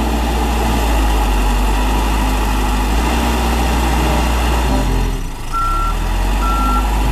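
Backhoe loader's diesel engine running steadily under load as the front bucket pushes earth, dipping briefly about five seconds in. From about five and a half seconds in, a reversing alarm beeps about once a second.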